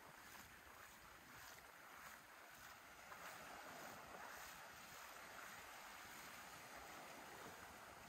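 Faint, steady rush of shallow surf and foam washing up over the sand.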